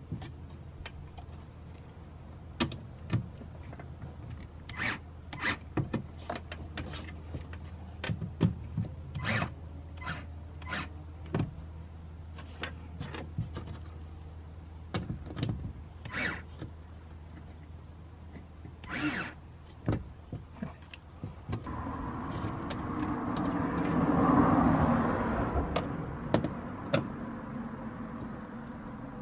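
Scattered clicks and light knocks of a plastic speaker adapter ring and its screws being handled and hand-tightened into a car door's inner metal panel, over a steady low hum. In the last third a passing vehicle's rush of noise swells to the loudest point and fades away.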